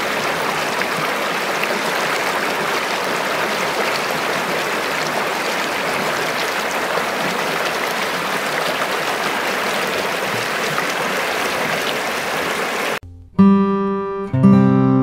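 A small stream rushing steadily over a fallen log and branches. About 13 seconds in the water sound cuts off and acoustic guitar music begins, with strummed chords.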